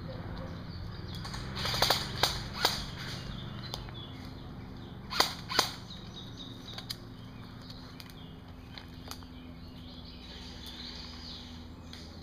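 Airsoft guns firing scattered single shots. Three sharp snaps come close together about two seconds in and a pair about five seconds in, with a few fainter snaps later.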